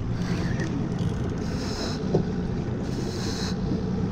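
Boat at sea: a low steady motor hum under wind and water noise, with a brief hissing swish three times.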